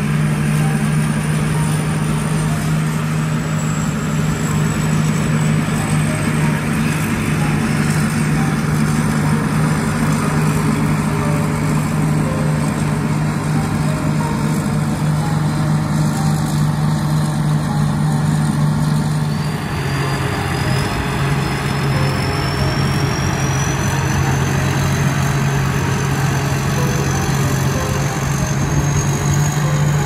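Rice combine harvester running steadily as it cuts, a continuous engine drone with a thin high whine. About two-thirds of the way through the drone drops slightly in pitch and the whine slowly rises.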